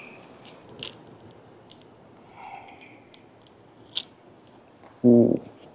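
Scissors snipping through a small baitfish: a few sharp clicks, the loudest about a second in and again about four seconds in. A brief burst of a man's voice near the end.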